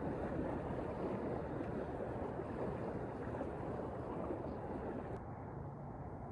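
Steady wind noise on the microphone, an even rush with no distinct events, its upper hiss dropping away about five seconds in.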